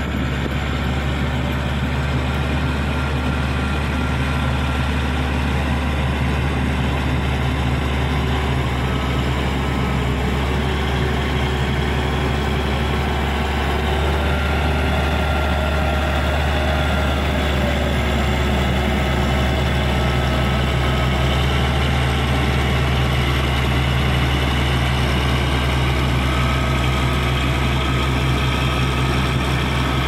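Caterpillar D6G bulldozer's diesel engine running steadily under load as the dozer pushes soil with its rake blade.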